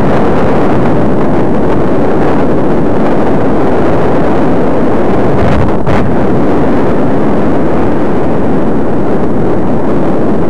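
Loud, steady wind buffeting the microphone of a camera moving along a road, a rushing noise that fills the track.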